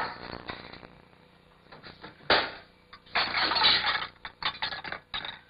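Kitchen clatter of dishes and objects being handled on a cluttered counter: a sharp knock about two seconds in, then a burst of clattering and a few short clicks.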